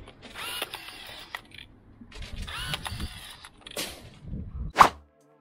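Battery-powered rebar tying gun cycling twice, tying two rebar crossings: each tie is about a second of motor whir, changing in pitch as the gun feeds and twists the wire, the two ties about two seconds apart. A sharp snap comes near the end.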